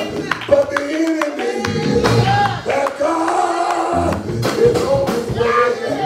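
A man singing into a microphone over instrumental church music, with sharp drum or percussion hits throughout.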